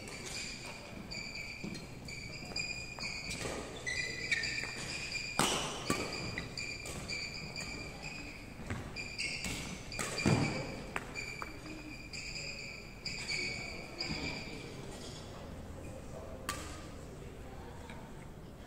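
Badminton shoes squeaking on a wooden court floor in many short, high chirps, with sharp cracks of rackets striking the shuttlecock now and then and a heavier thud about ten seconds in. The sound rings in a large hall, with faint voices around the courts.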